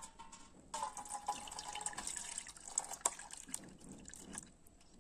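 Wood apple (bel) pulp and water poured onto a stainless steel perforated strainer, splashing and draining through the holes. The pour starts about a second in and tails off near the end.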